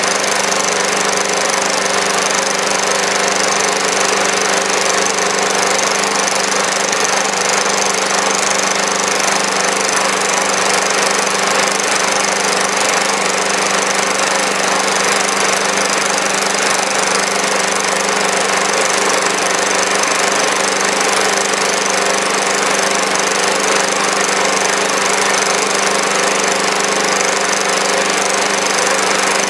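Small engine running steadily under load, driving a generator that feeds about 350 watts into a resistor load.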